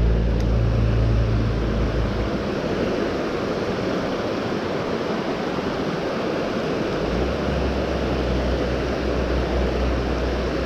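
Steady rushing of flowing river water, with wind buffeting the microphone as a low rumble for the first couple of seconds and again from about seven seconds in.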